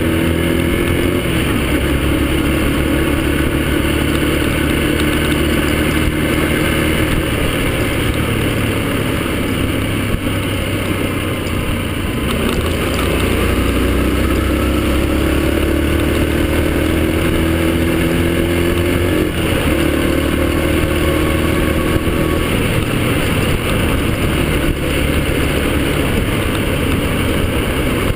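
Yamaha XTZ125's single-cylinder four-stroke engine running while riding, its pitch rising and falling several times as the bike speeds up and shifts.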